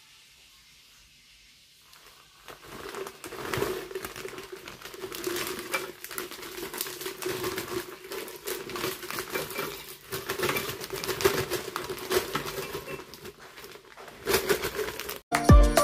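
Plastic bag of frozen blackberries crinkling and rustling as it is handled and emptied into a glass blender jar, starting about two and a half seconds in. Music begins abruptly near the end.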